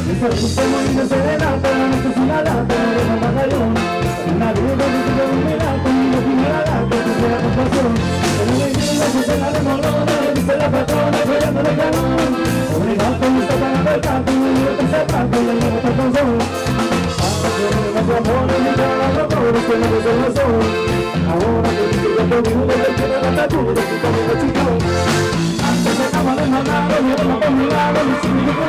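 Live band playing an upbeat song with a steady dance beat, with electric bass and electric guitar.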